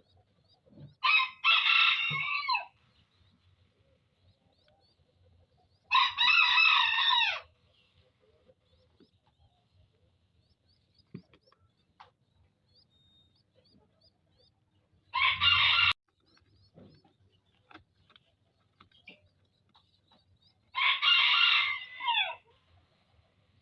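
A rooster crowing four times, each crow lasting about a second and a half and dropping in pitch at the end, with several seconds between crows.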